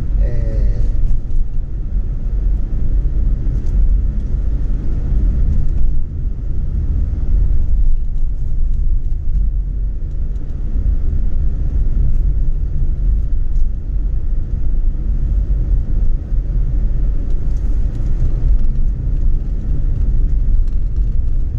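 A steady low rumble of road and engine noise inside a moving car's cabin as it drives along a paved street.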